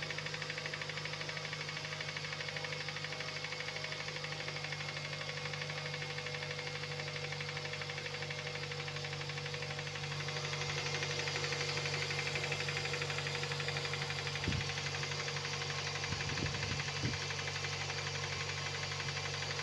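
Mazda 6 engine idling from a cold start with a fast, steady knocking, a cold-engine knock that the owner says goes away after three to four minutes of warming up. It gets a little louder about halfway through, and a few short low thumps come near the end.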